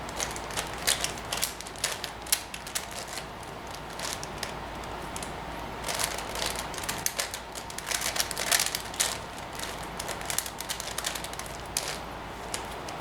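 Plastic 5x5 Rubik's cube (Professor's cube) being twisted by hand: quick, irregular clicking and clacking as its layers turn, in flurries with short pauses between them.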